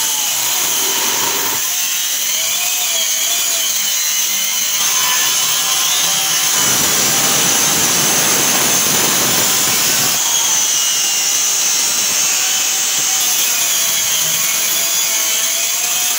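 JLD corded circular saw ripping lengthwise through a wooden board with the blade set about 2 cm deep, motor whining under load and the blade cutting the wood. The motor pitch sags and recovers as the load changes, with the cut heaviest about halfway through.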